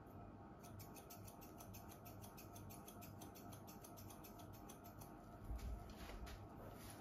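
Faint hair-cutting scissors snipping rapidly through a section of hair, about eight quick snips a second. About five and a half seconds in there is a soft low thump, followed by a few slower snips.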